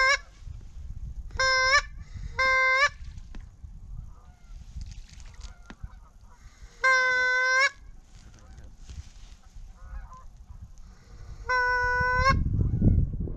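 Hand-blown duck call sounding steady single-pitched quacks: two short notes in the first few seconds, then longer drawn-out notes about seven and twelve seconds in. Wind rumbles on the microphone underneath, heavier near the end.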